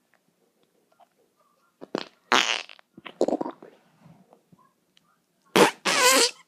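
Fart sounds in three separate bursts: a loud one about two seconds in, a shorter one about a second later, and a longer one near the end whose pitch wavers.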